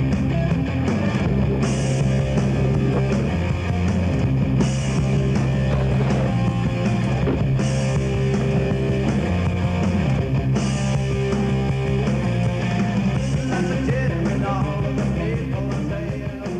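Punk rock music with electric guitar and bass, loud and steady, with a cymbal-like crash about every three seconds.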